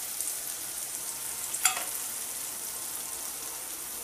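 Chopped tomatoes sizzling steadily in hot oil and fried spice masala in a metal kadai, with one sharp click about one and a half seconds in.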